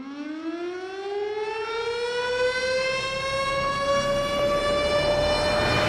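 Air-raid siren wind-up: one tone rising slowly in pitch and growing louder, the sound-effect intro of a music track.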